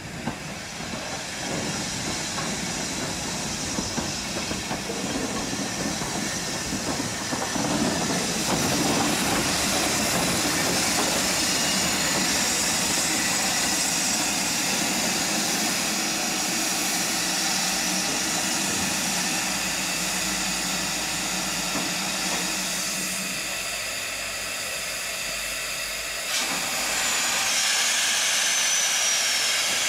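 Ivatt Class 2MT 2-6-2T steam tank locomotive hissing steam steadily. About 26 seconds in, a sudden louder rush of steam starts as the cylinder drain cocks open, with a thin falling whistle over it.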